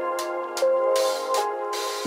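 Background music: a light electronic melody over a steady high tick about four times a second, with no bass.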